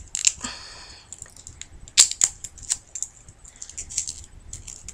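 Duct tape crackling and rustling as it is folded and wrapped tightly around a wired stem by hand. A short scratchy stretch near the start is followed by a string of sharp, irregular crackles and clicks.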